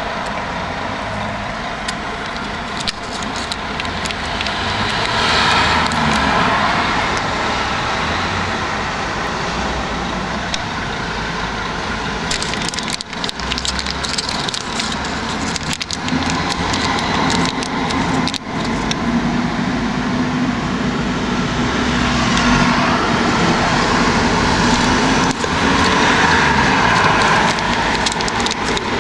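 Steady street traffic noise. Over it comes the crinkle and crackle of foil condom packets being handled and pushed into a cash machine's cash slot, densest about halfway through.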